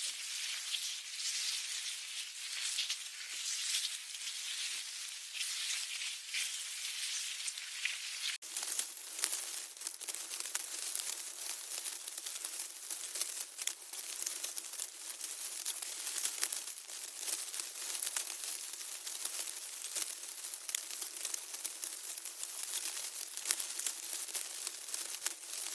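Ant colony: a dense, fine crackling rustle of many tiny clicks from ants moving. About eight seconds in it cuts to a second, similar recording.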